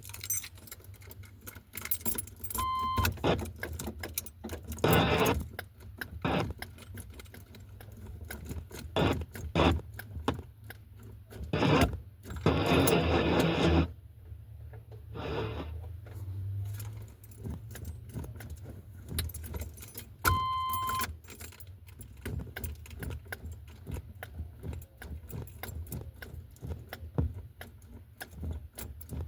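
Keys jangling and clicking at the ignition of a 1988 Chevy Suburban, with a short electronic beep twice. In between come a few brief bursts of starter cranking, the longest about two seconds, as the new ignition switch is tried.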